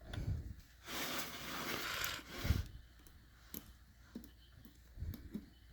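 A rushing, breathy hiss lasting about a second and a half, then a dull knock and a few faint, light clicks of small phone parts being handled while a ribbon cable is fitted.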